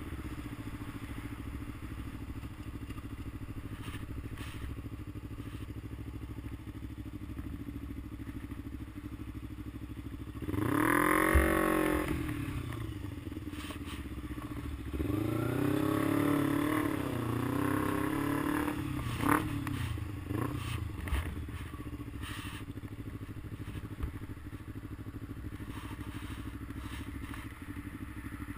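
A motor vehicle engine running steadily, its pitch rising and falling twice around the middle as the engine revs up and back down.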